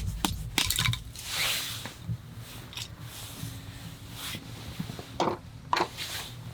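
Freshly sharpened axe blade being tried out: several short cutting or scraping strokes, with one longer stroke about a second and a half in and two sharper ones near the end.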